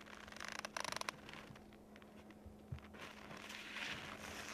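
Faint rustling and handling noise from people's clothing and gear, with a quick run of small clicks about half a second to a second in and a softer stretch of rustling near the end.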